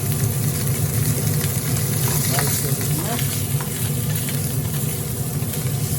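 Day-old, dried-out rice frying in hot oil in a carbon steel pan: a steady sizzle, with a spatula clicking and scraping against the pan a few times in the middle, over a steady low hum.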